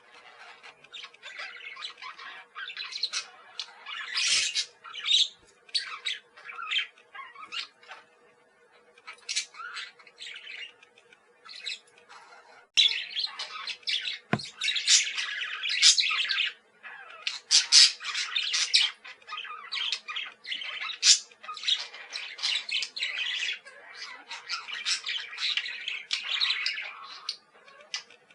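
A group of pet parakeets chattering and squawking, with many quick overlapping chirps, sparser at first and busier from about halfway through.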